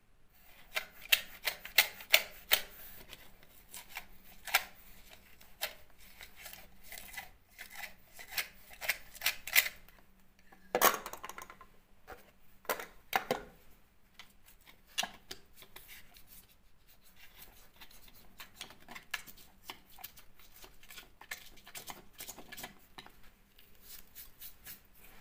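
Utility knife blade and then a screwdriver tip scraping and picking out loose, damp-damaged plaster and wall texture at a window reveal, in short irregular scratches and clicks. A louder knock comes about eleven seconds in.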